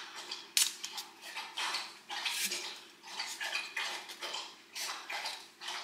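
Dogs eating breakfast from their bowls: irregular clinks and clatters of food against the bowls.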